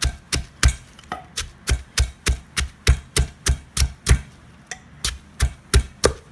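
Wooden pestle pounding shallots, lemongrass and chilies with salt in a mortar, steady strokes about three a second.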